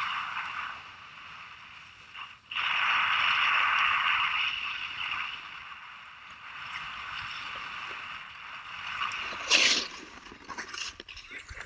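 Snowboard edges scraping over hard-packed groomed snow, the hiss swelling and fading in long waves as the rider carves. Near the end a sudden loud scrape, then softer crunching as the board runs into deep snow.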